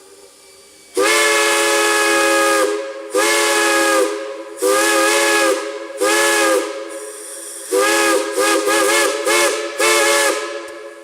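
Steam whistle sounding a chord of several notes at once, blown in a series of blasts: one long blast about a second in, then several shorter ones, then a quick run of short toots near the end. Steam hisses between the blasts.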